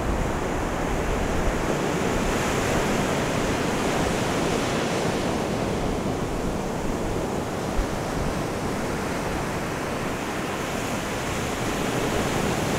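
Ocean surf breaking on a sandy beach: a steady rushing wash that swells and eases. A single short knock about eight seconds in.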